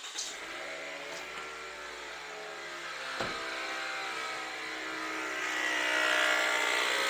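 Toyota Voxy 3ZR 2.0 engine just started and idling steadily, with the loud noise of a failing alternator overrunning (one-way clutch) pulley, a fault that is common on these engines past 100,000 km. The sound grows louder and brighter near the end, with one short knock about three seconds in.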